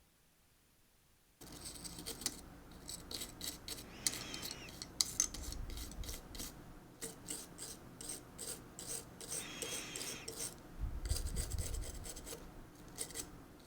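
Quick, repeated rubbing or scraping strokes on a small hard surface, starting about a second and a half in and running on in uneven bursts, with a couple of dull low bumps.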